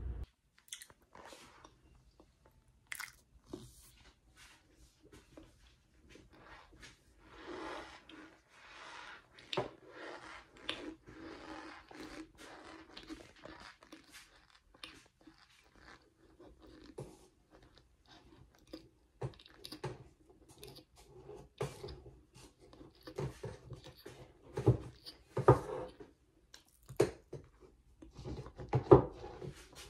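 A person chewing cornstarch close to the microphone: irregular crisp crunches and clicks, growing louder and denser over the last several seconds.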